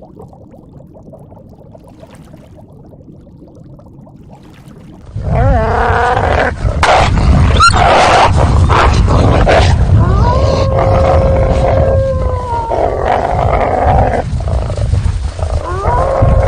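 Faint background hiss, then about five seconds in, loud animal calls start abruptly: rough noisy calls, then long steady pitched calls of about two seconds each, each ending in a slight drop in pitch.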